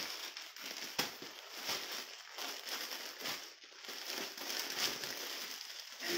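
Clear plastic packaging crinkling and rustling as folded cloth is pulled out of it by hand, with one sharp crackle about a second in.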